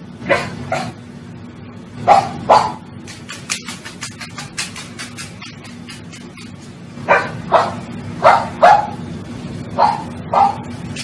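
Short barks coming in quick pairs, five pairs in all, with a run of light sharp clicks between the second and third pair. A steady low hum lies underneath.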